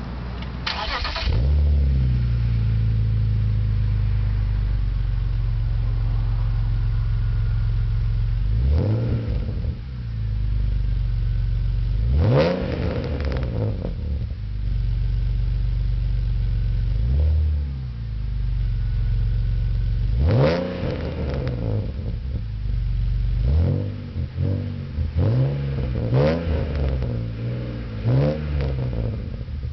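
2001 BMW 330ci's 3.0-litre straight-six, heard at the twin tailpipes through aftermarket headers and a Borla cat-back exhaust with its first resonator cut out, on a cold start. It idles steadily, is revved up and back down to no more than about 4,000 rpm a few times, then is blipped quickly several times near the end.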